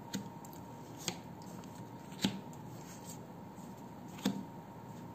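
Tarot cards being laid down one at a time onto a table: four short, sharp snapping taps a second or two apart, the third the loudest.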